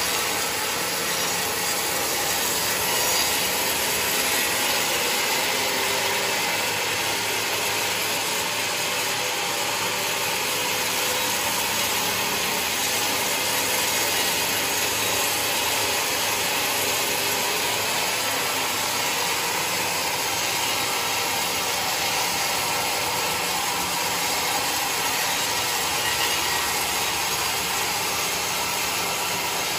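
Sawmill machinery running with a steady, unbroken noise, its saw working through mahogany.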